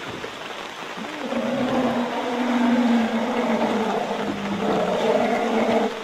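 Asian elephant giving one long, low call that starts about a second in, grows louder and holds steady in pitch until near the end, over a steady hiss of night-time jungle noise.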